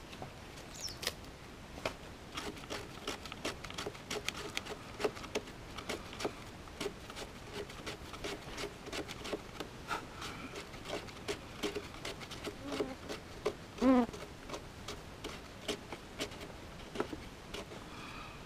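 Dry birch bark being torn, crumpled and worked by hand into fire tinder: irregular crackling and rustling clicks, with one louder, falling creak about three-quarters of the way through.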